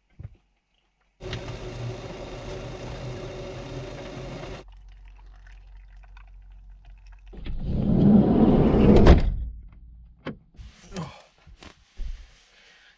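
Hot water poured from a stainless steel kettle into a hot water bottle, a loud rushing pour lasting about two seconds past the middle. Before it, a steady hiss runs for about three seconds and stops abruptly; near the end, soft rustling of bedding.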